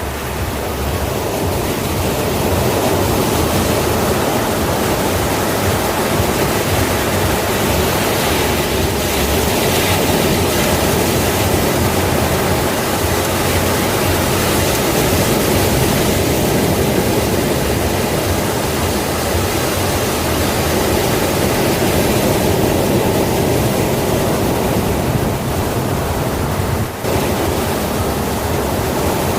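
Sea surf: a continuous rush of waves breaking and washing, swelling and easing gently, with a brief drop about 27 seconds in.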